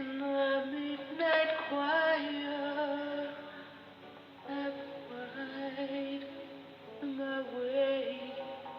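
A woman singing a slow ballad in long, drawn-out notes that slide from one pitch to the next, in phrases that swell and fade.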